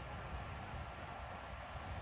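Steady outdoor background noise: a low rumble and an even hiss, with a faint steady high tone running through it.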